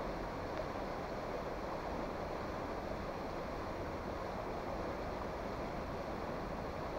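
Steady rush of flowing river water, an even noise that holds without change.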